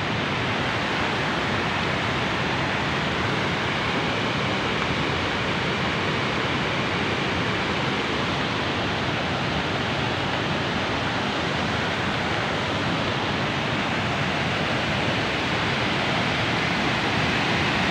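Steady rushing roar of a river pouring over rocky rapids and low waterfalls, an even wash of water noise with no break.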